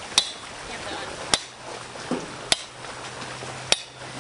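Sledgehammer blows, four sharp strikes about a second and a quarter apart, each with a brief metallic ring.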